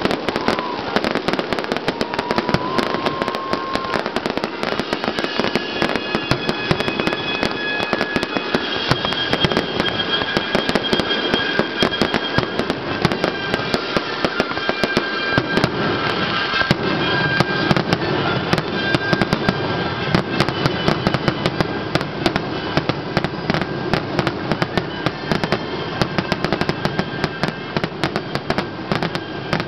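Aerial fireworks display at full intensity: a dense, unbroken barrage of shell bursts and crackling, many reports a second.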